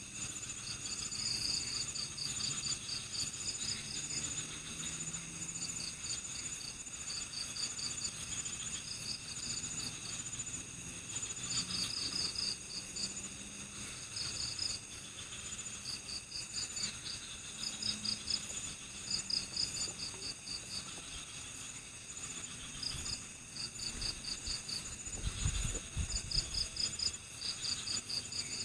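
Night chorus of crickets and other insects: several steady high-pitched drones overlaid by repeated short bursts of rapid chirps every second or two. A brief low rumble sounds near the end.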